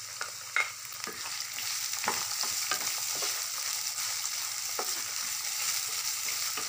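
Freshly added chopped onions sizzling in hot oil in a kadai as they are stirred, with occasional scrapes and taps of the spatula against the pan.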